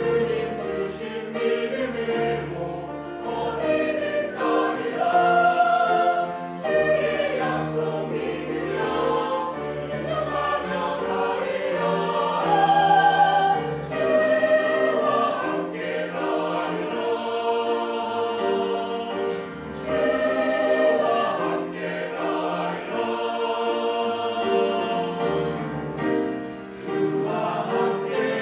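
Mixed-voice church choir singing a Korean hymn in harmony, with sustained notes and vibrato in the upper voices.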